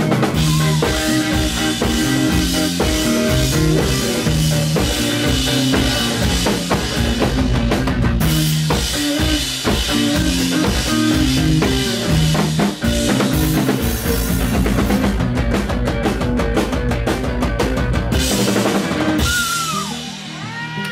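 Live rock band playing an instrumental passage on electric guitars, electric bass and drum kit, with a steady beat and a flurry of fast drum hits late on. The full band stops a couple of seconds before the end, leaving a few sliding high tones.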